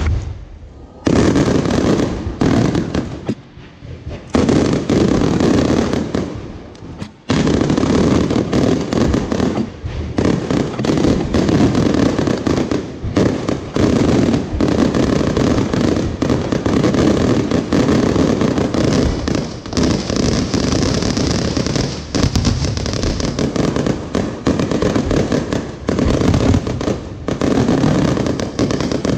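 Fireworks going off in a dense, continuous barrage of bangs and crackling. The barrage starts about a second in, dips briefly twice early on, then keeps going without a break.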